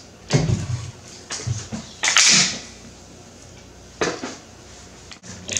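A bar clamp being loosened and taken off a 2x6 board: a few separate knocks of metal and wood, with a brief scraping rustle about two seconds in.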